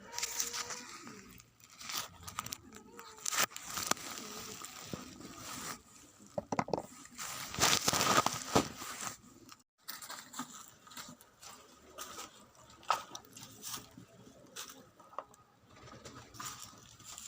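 Irregular rustling, crunching and clicking from things being handled close to the microphone, loudest about eight seconds in.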